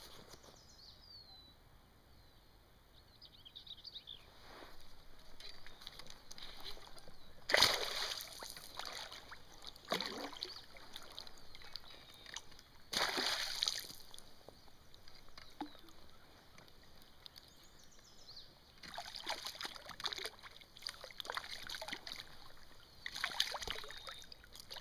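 A hooked bass thrashing at the water's surface, splashing in several sudden bursts as it is played in. The loudest splash comes about a third of the way in, with more near the end as the fish is brought close.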